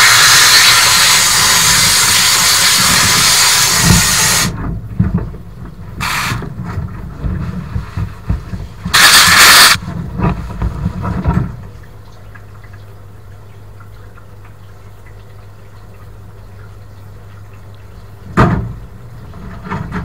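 Spray gun of a wet blast cabinet hissing loudly as it blasts a part, stopping about four and a half seconds in, then firing two more short blasts. Under it the cabinet's pump rumbles, settling into a steady low hum in the second half, with a single knock near the end.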